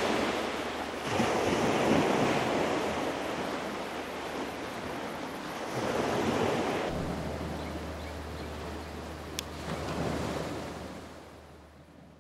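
Waves washing onto a rocky shore: a rushing wash that swells and ebbs several times, with some wind on the microphone, fading away near the end.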